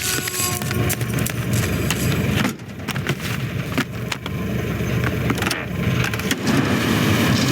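A motor vehicle's engine running on the move, with frequent rattles, clicks and knocks over it; it drops away briefly about two and a half seconds in.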